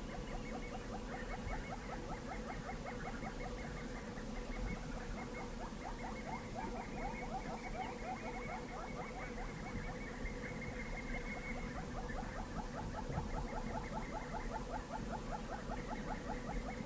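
Insects chirping in a fast, even pulse train, many chirps a second, over a steady hum.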